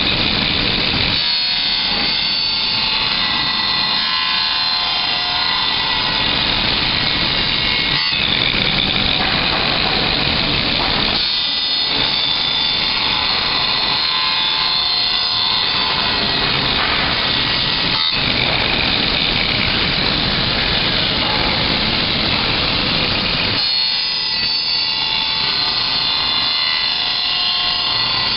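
5-axis gantry CNC router cutting fiberglass reinforced plastic: a steady high spindle whine over rough cutting noise. The sound changes in character three times, about a second in, near the middle, and a few seconds before the end.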